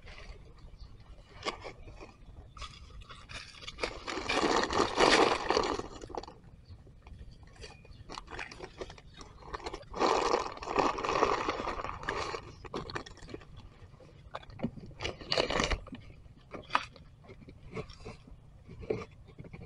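Dry leaf litter crunching and scraping, in two longer loud spells about four and ten seconds in, with scattered sharp crackles and clicks between them.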